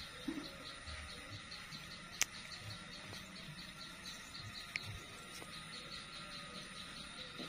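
Insects chirping in a steady rhythm, about four short pulses a second, with two sharp clicks about two and five seconds in.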